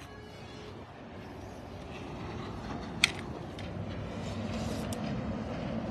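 A vehicle's engine rumbling and growing gradually louder, with a sharp click about three seconds in.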